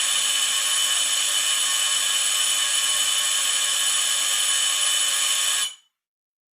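Electric buzzer-type doorbell held down, giving one steady, unbroken buzz that stops about five and a half seconds in.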